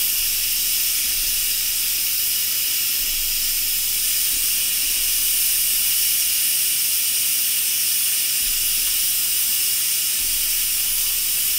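Instant Pot electric pressure cooker venting steam through its opened pressure-release valve in a steady, even hiss: the pressure left after a natural release being let out before the lid comes off.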